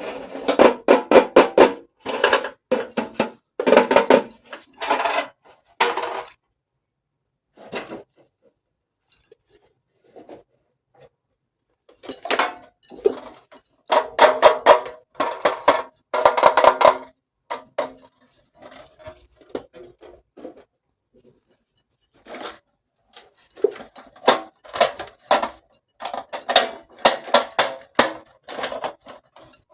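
Miniature toy kitchen dishes and utensils clinking and rattling as they are handled, in runs of quick clicks with quieter scattered taps between; the busiest runs come at the start, around the middle and near the end.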